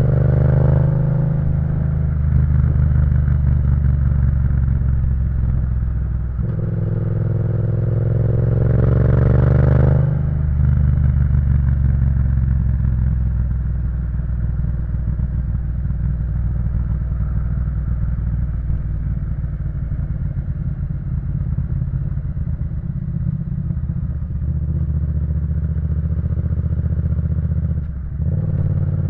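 Yamaha MT-07's 689 cc crossplane parallel-twin engine through an Akrapovič full exhaust system, pulling hard with the revs climbing and then dropping suddenly as it shifts up, about a second in and again about ten seconds in. After that it runs at steadier, lower revs, with a brief dip near the end.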